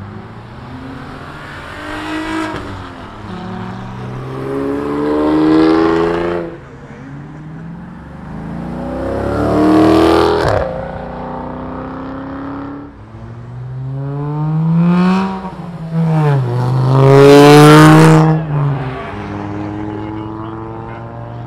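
Cars accelerating hard past one after another, their engine notes rising as they rev through the gears and fading as each goes by. The passes peak about six seconds in, about ten seconds in, and loudest around seventeen seconds, with a shift just before that last one.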